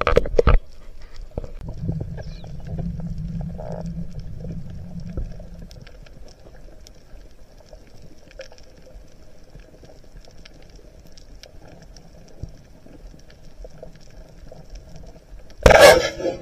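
Underwater sound through an action camera's housing: loud knocks and rubbing at the start as a speared fish is handled, a low rumble for a few seconds, then a quieter background with scattered small ticks. Near the end there is another loud knocking rush as the speargun is swung past the camera.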